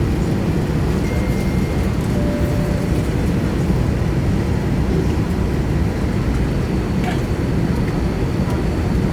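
Steady low rumble in the cabin of an Airbus A320 parked at the gate: the air-conditioning and ventilation are running.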